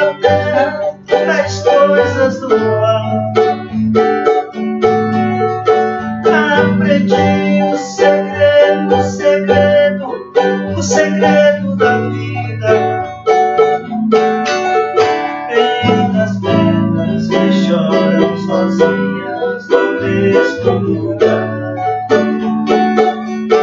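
Instrumental passage played by a banjo and a craviola (acoustic guitar), with quick plucked and strummed notes over steady bass notes and no singing.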